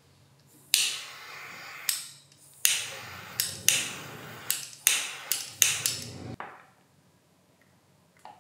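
Butane jet lighter clicked and hissing as its flame shrinks heat-shrink tubing over soldered wire joints: about ten sharp igniter clicks, each starting a burst of hiss, with a short break and an abrupt stop near the end. A light tap follows.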